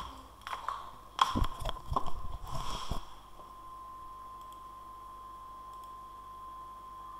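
A flurry of close knocks, clicks and bumps at the microphone for about three seconds, like something being handled or set down on the desk right by the mic. After that, only a steady faint high whine over the room noise.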